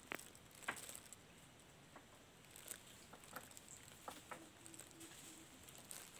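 Near silence, with a few faint scattered clicks and taps.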